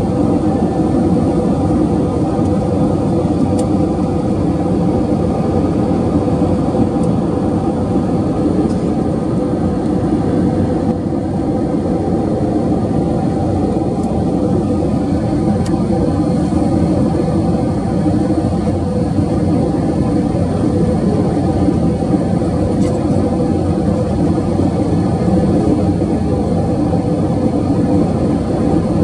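Jet airliner cabin noise in flight: the turbofan engines and the air rushing past make a steady, unbroken rumble, with a few faint steady tones above it.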